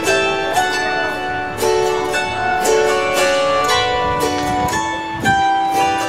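Autoharp being played: strummed chords with a plucked melody, each chord struck about every half second and left ringing.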